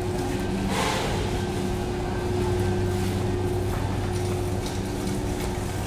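Steady low machinery hum of a warehouse store's refrigeration and ventilation under a background of store noise. A brief rustling swish comes about a second in.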